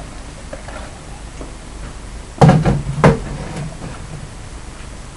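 Two hard knocks about two-thirds of a second apart, each with a low thud.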